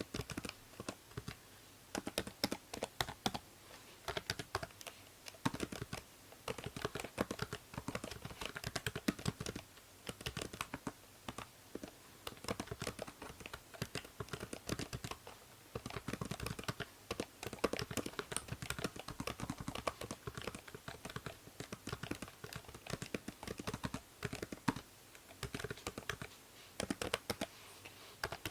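Computer keyboard typing in quick runs of keystrokes with brief pauses between them, over a steady background hiss from the binaural microphone.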